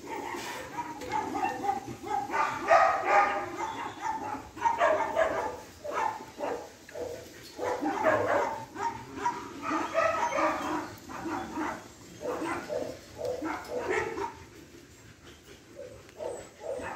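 Dogs barking and whining in irregular runs of calls, easing off for a couple of seconds near the end.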